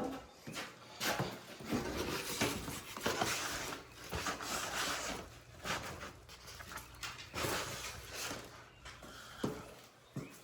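Irregular knocks, scrapes and shuffling of objects being handled and moved about, as in rummaging for something.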